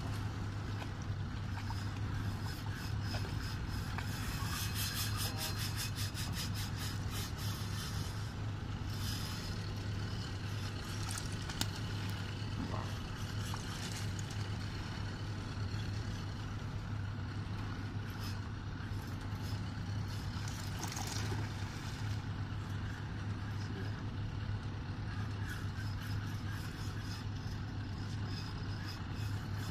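A boat engine idling with a steady low hum, and now and then a run of rapid, even clicking over it.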